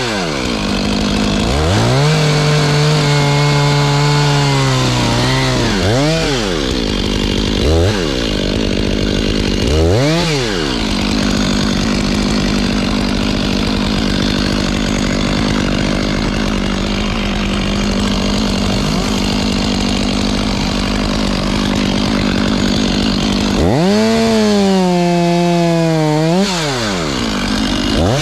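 Two-stroke chainsaw cutting wood: the engine revs up and drops back several times in the first ten seconds, holds a steady full-throttle pitch through a long cut, then falls and revs up again near the end.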